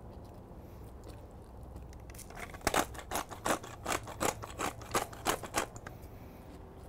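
Hand pepper mill grinding fresh black pepper: a run of short crunchy grinding clicks, about three a second, starting about two seconds in and stopping near the end.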